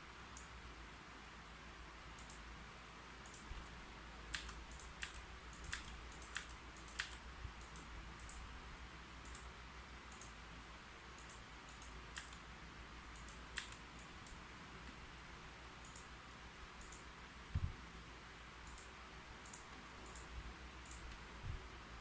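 Keyboard typing: soft, irregular key clicks, with a quick run of keystrokes from about four to seven seconds in and scattered single taps after. A soft low thump comes about two-thirds of the way through.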